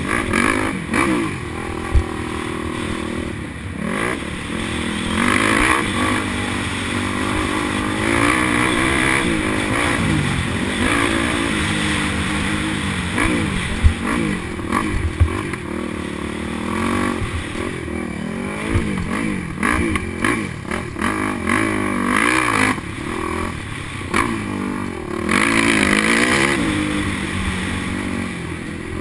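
Yamaha motocross bike's engine heard from on board, revving up and dropping back again and again as it is ridden hard round a dirt track, with a couple of sharp knocks.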